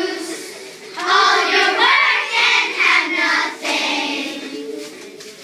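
A group of young children singing together in unison, loudest in the middle and trailing off near the end.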